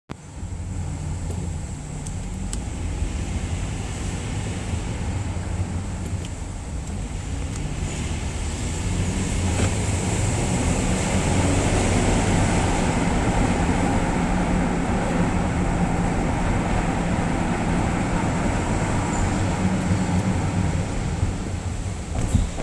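2011 Ford Edge running while steered left up a parking ramp: a steady low rumble that grows louder around ten seconds in. It is an unexplained noise on left turns whose cause the owner does not know.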